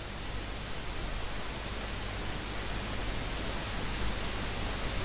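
Steady hiss of the microphone's background noise, with a faint low hum underneath.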